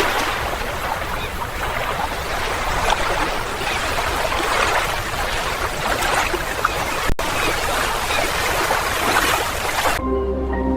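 Running water trickling and gurgling over rocks, an even wash of sound with fine crackle in it, briefly cut for a split second about seven seconds in. Near the end it stops abruptly and soft music takes over.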